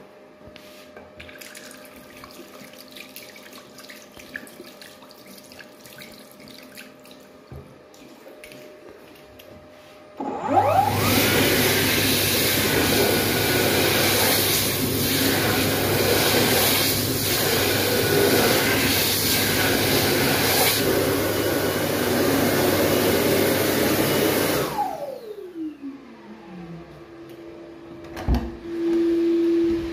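Dyson Airblade AB01 hand dryer starting abruptly with hands in the trough, blowing loudly and steadily for about fourteen seconds, then spinning down with a falling whine once the hands come out. Near the end, a thump as a wooden door is pushed open.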